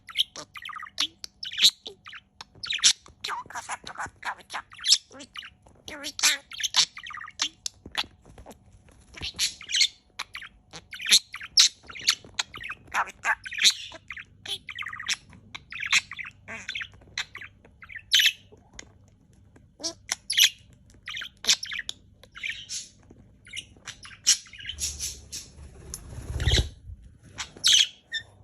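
Pet parakeet chattering excitedly in rapid, high-pitched chirps and squawks that run on with only brief pauses. Near the end a short low rumble comes in under the calls.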